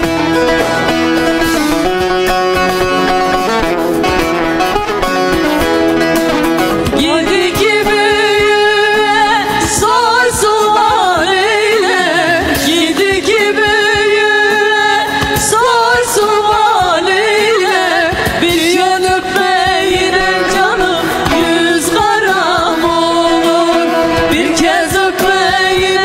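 Turkish folk song: a plucked-string instrumental introduction, then women's voices singing over the accompaniment from about seven seconds in.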